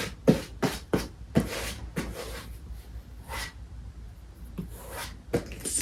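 A small plastic travel electric kettle being handled: a quick run of clicks and knocks, then scattered taps and brief rubbing as it is turned over and felt for sandy grit inside.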